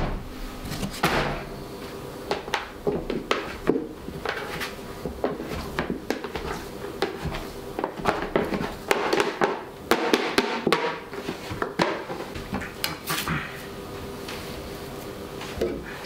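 Kitchen handling sounds on a stainless-steel bench: irregular knocks and taps of a bench scraper and a plastic tub, and rustling of a paper bag, over a faint steady hum.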